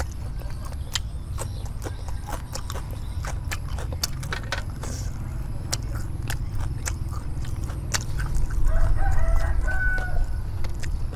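A rooster crows in the background about eight seconds in, for roughly two seconds, the loudest sound here. Throughout, crisp clicks and crackles come from a crispy rice pancake being torn apart by hand and chewed, over a steady low rumble.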